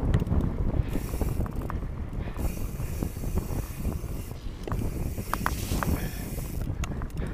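Mountain bike rolling down a dirt singletrack: tyres rumbling on the dirt while the bike rattles and clicks over the bumps, with wind gusting on the microphone now and then.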